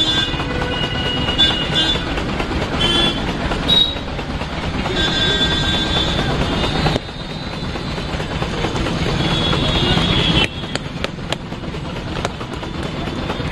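Loud, steady noise of road traffic, with brief high steady tones in the first half. The level drops abruptly about 7 and again about 10.5 seconds in.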